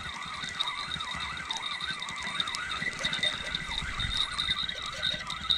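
Frogs calling from the pond in a continuous warbling chorus, with a steady high-pitched trill above it.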